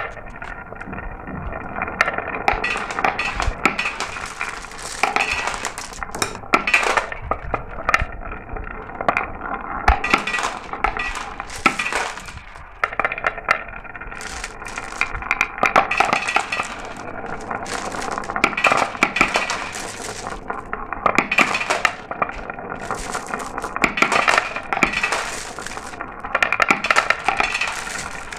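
Many glass marbles rolling down a marble run, a constant dense stream of clicks and clinks as they knock against one another and the track, briefly thinning out about halfway through.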